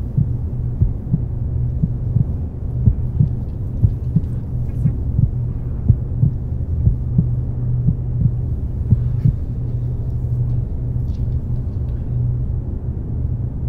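A steady low hum with irregular soft low thumps, about one or two a second, thinning out about two-thirds of the way through.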